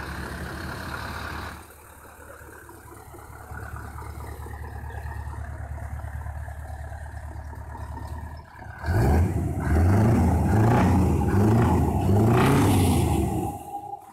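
Scania 164 580's V8 diesel idling, then its revs climbing and dropping back about five times in quick succession, much louder, before settling back near the end.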